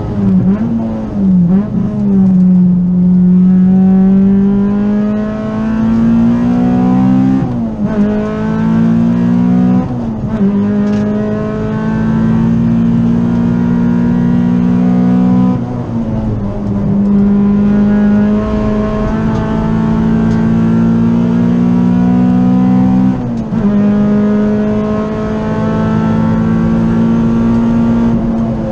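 Honda EG Civic's B18C Type R 1.8-litre four-cylinder VTEC engine driven hard on track, heard from inside the cabin. The engine note climbs steadily under load, breaks sharply at about four gear changes, then climbs again.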